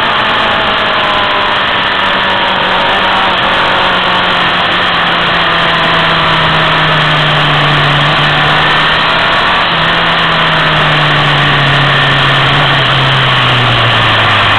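Motorcycle engine running steadily under way through the bends, its pitch drifting slowly lower toward the end, under a constant rush of road and wind noise.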